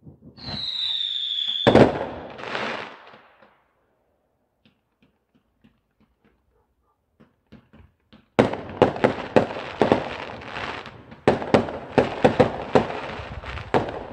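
Fireworks: a high whistle falling slightly for about a second ends in a loud bang and a crackle. After a lull with a few faint pops, a dense barrage of sharp bangs and crackles starts about eight seconds in.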